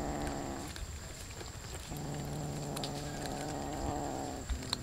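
A cat growling low over its food in two long, drawn-out stretches, the second starting about two seconds in. A few sharp clicks come near the end.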